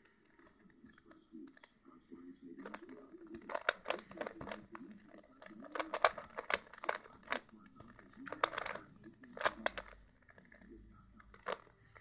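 Plastic Rubik's cube being turned by hand: quick runs of clicking and clacking as the layers twist, broken by short pauses.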